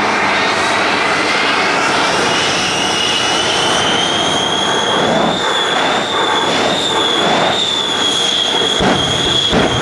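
Shockwave jet truck's three jet engines running up while it stands on the runway: a loud jet roar with a high whine that climbs in pitch over the first few seconds and then holds steady. Several sharp pops break in near the end.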